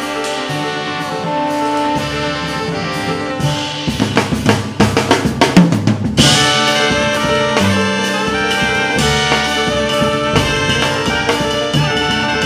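Small jazz ensemble playing live: trumpet and saxophones over upright bass, drums and piano. Around four seconds in the drums play a busy fill of rapid hits, and just after six seconds the horns come in together on a loud held chord.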